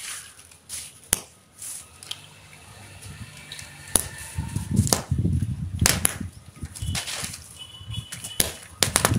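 Paper roll caps going off in a burning pile: scattered sharp pops, with a rush of flaring noise in the middle.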